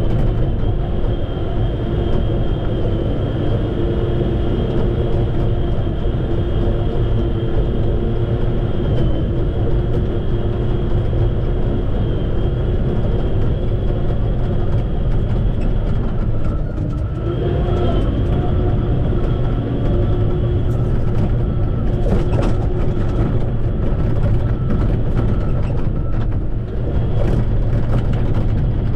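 Shantui bulldozer's heavy diesel engine running steadily under load, with a high steady whine over a deep hum. The engine note dips and swings in pitch briefly a little past halfway.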